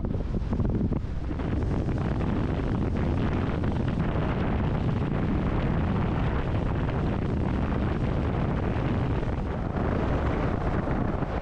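Steady wind buffeting the microphone aboard a speedboat under way, with engine and water noise underneath.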